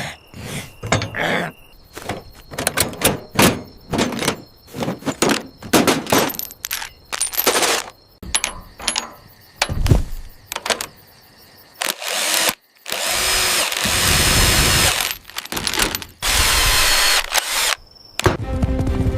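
Tool-work sound effects: a quick run of knocks and clunks for about twelve seconds, then several seconds of a power tool running in long stretches with short breaks between them.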